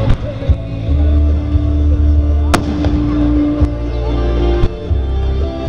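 Fireworks bangs over music with long held notes and a steady bass. There are several sharp reports, the loudest about halfway through.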